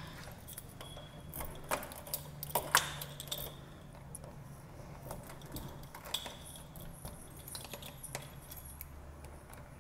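A bunch of keys on a key ring jangling in the hand, with several sharp metallic clicks, the loudest about two and three seconds in, over a steady low hum.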